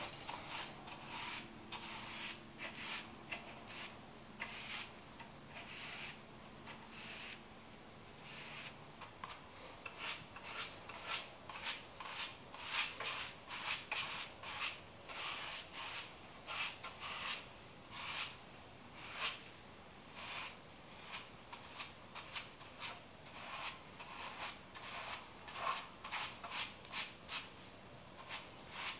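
Paintbrush strokes brushing whitewash onto a wooden box, a short rubbing stroke repeating about twice a second.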